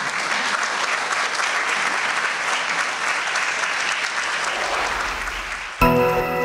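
Audience applauding. Near the end, music cuts in abruptly with a sustained chord.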